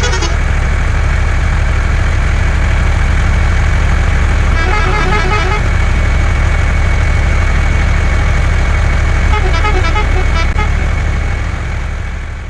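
A heavy vehicle's engine running steadily with a deep rumble, and a horn giving quick repeated toots twice, about five and ten seconds in; the sound fades out near the end.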